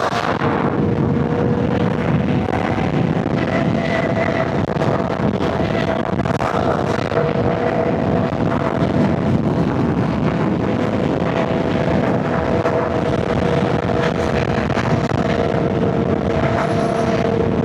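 Inline-four sport bike engine running at a steady cruise, a constant held drone under an even rush of road and wind noise.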